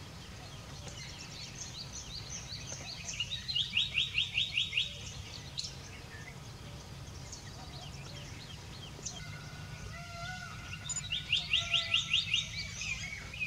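Small birds chirping, with a quick run of about eight even, high notes twice: a few seconds in and again near the end.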